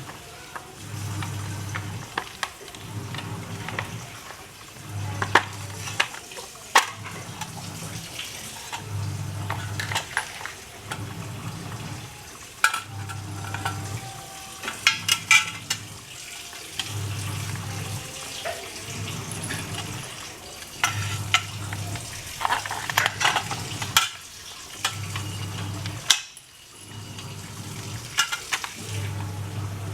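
Metal clinks and taps of bolts, nuts and stainless-steel frame pieces of a wheeled washing-machine base being handled and fitted together, with a low hum pulsing on and off about every two seconds underneath.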